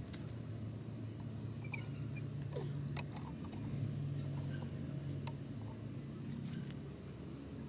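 Quiet outdoor night ambience: a steady low hum with scattered faint clicks, and a few faint high chirps about two seconds in.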